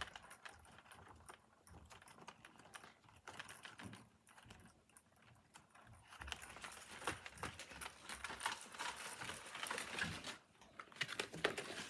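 Near silence for about six seconds, then a run of faint, irregular light taps and clicks.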